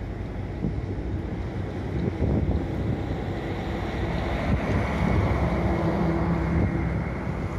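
Wind buffeting the microphone with a gusty low rumble. Under it, a fishing boat's engine drones steadily, with its hum standing out from about three seconds in.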